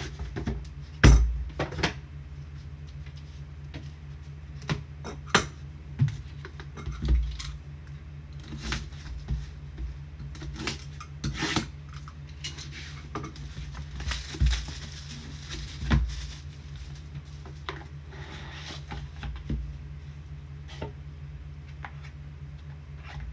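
Trading cards in hard plastic top loaders and their box being handled on a table: scattered clicks and knocks, the loudest about a second in, with stretches of rustling and scraping. A steady low hum runs underneath.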